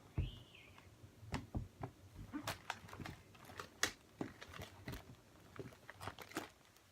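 Soft, scattered clicks and rustles of hands rummaging through a pile of squishy toys, with a brief high squeak just after the start.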